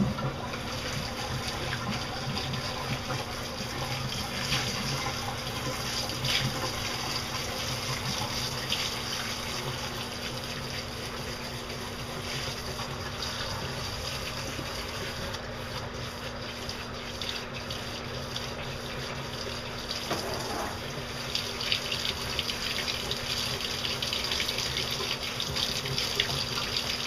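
Handheld shower head spraying a steady stream of water into a wet dog's coat in a bathtub, held against the hair to rinse the conditioner out.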